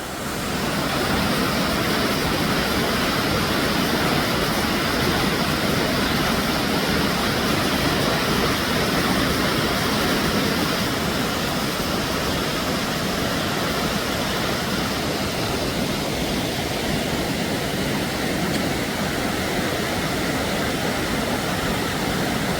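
Steady, loud rush of a waterfall: white water pouring over rock, an even noise without a break.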